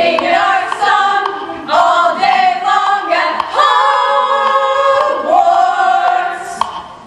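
A group of women's voices singing together a cappella in chords, with long held notes about halfway through and fading near the end.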